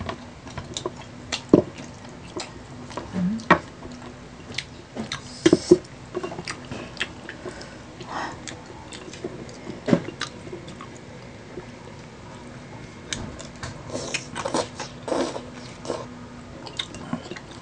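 Close-miked chewing and biting of fried fishballs and other fried street food, with many short, sharp clicks scattered throughout. A faint steady hum sits underneath.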